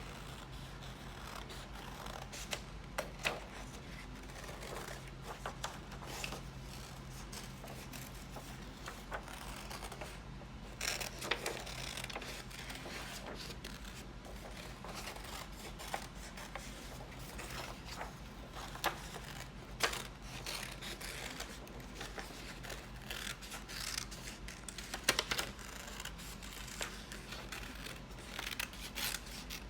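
Scissors snipping through paper, irregular cuts with short pauses between them, as a hand shape traced on the paper is cut out.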